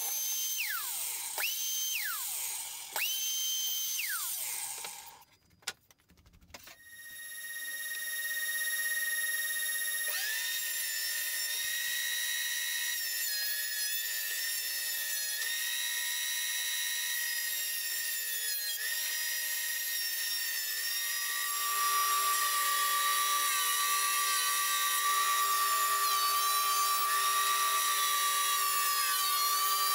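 A mitre saw spins up and winds down three times in quick succession, making short cuts. After a brief gap, a benchtop thickness planer with its dust extractor starts and runs steadily, its pitch dipping briefly now and then as boards pass through, and it gets louder about two-thirds of the way in.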